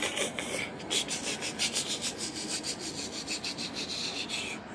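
Toy spider scuffed and rubbed by hand across a fabric surface: a quick, rhythmic scratching of several strokes a second that stops near the end.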